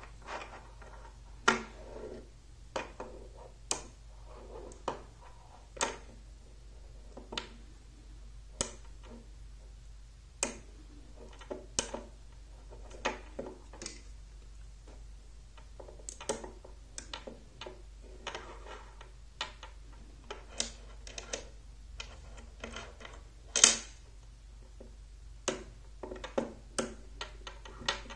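Small neodymium magnet rods snapping onto steel balls, with steel balls clinking in a metal tin as they are picked out. The result is irregular sharp metallic clicks, roughly one to three a second, with soft handling noise between them and one louder snap near the end.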